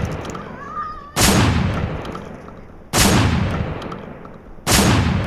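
Three loud gunshots about one and three-quarter seconds apart, each followed by a long echoing tail that fades away.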